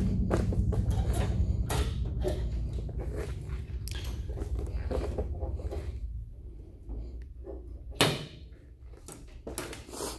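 Handling noise from a handheld camera being carried around: a low rumble for about the first six seconds with scattered clicks and knocks, the sharpest knock about eight seconds in.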